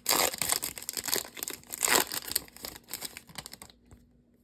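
A trading card pack's wrapper being torn open and crinkled by hand: dense crackling and tearing that stops about three and a half seconds in.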